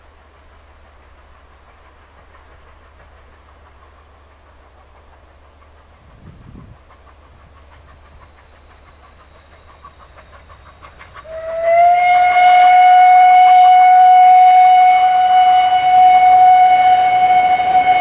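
Whistle of the 141R 840, a 2-8-2 steam locomotive, sounding one long, loud, steady note that starts about two thirds of the way in, sliding up slightly as it opens. Before it, the train's approach is a faint low rumble.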